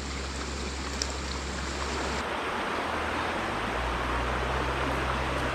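Creek water flowing steadily, an even rushing.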